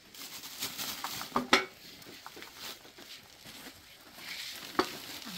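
A plastic shopping bag and small goods being handled: rustling with a few sharp clicks and knocks, the loudest about a second and a half in and another near the end.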